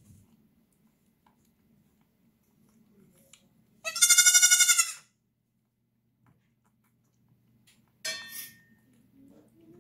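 Nigerian dwarf goat kid bleating while being bottle-fed: one loud bleat lasting about a second, about four seconds in, and a shorter, quieter bleat near eight seconds.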